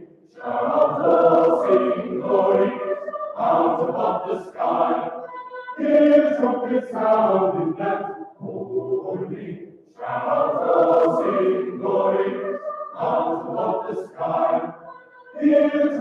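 Mixed choir of men's and women's voices singing a sacred choral piece, in phrases broken by short breath pauses every few seconds.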